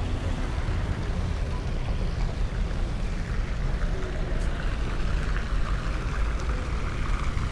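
Steady city street ambience: a continuous low rumble of traffic with an even wash of noise over it.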